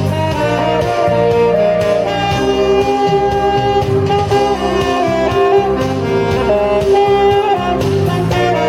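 Saxophone playing a slow melody of long held notes over a backing accompaniment with a pulsing bass line.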